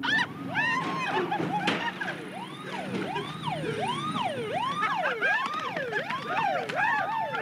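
Siren-like wailing: several overlapping tones that each sweep up and fall back, about two sweeps a second, beginning suddenly and packing closer together in the second half, over a low steady hum.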